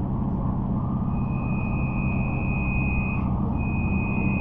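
Trolza-5275.03 Optima trolleybus running along the road, heard from inside: a steady low rumble with a high, steady whine that comes in about a second in, drops out briefly after about three seconds and returns.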